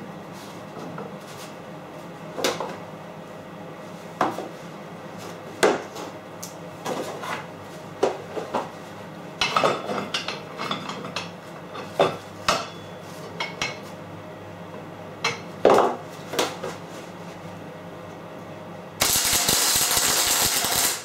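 Steel parts clanking and knocking as they are set and shifted against each other on a metal workbench. Near the end a MIG welder's arc strikes and crackles steadily for about two seconds: a tack weld.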